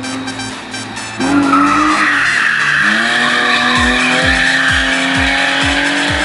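Drift car sliding through a corner: the engine's revs jump about a second in and climb, and loud tyre squeal sets in about two seconds in and holds as the car keeps its slide.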